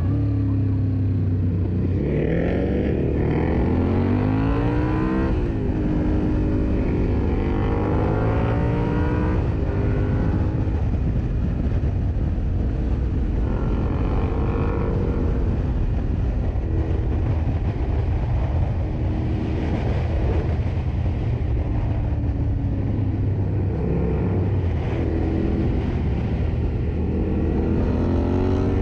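Yamaha Ténéré 700 motorcycle's parallel-twin engine pulling hard under acceleration. Its pitch climbs and drops back several times as it runs up through the gears, with steadier cruising stretches between, over a constant rush of wind noise.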